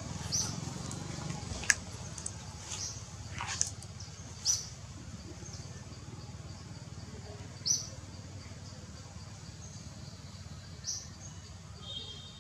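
Forest ambience: short high bird chirps every few seconds over a steady low hum, with one sharp click nearly two seconds in, a call that falls in pitch a couple of seconds later, and a brief high trill near the end.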